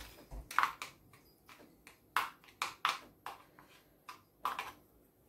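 A spoon tapping and clinking against a glass mixing bowl and small plastic pots as mashed food is scooped and portioned out: a dozen or so short, irregular taps.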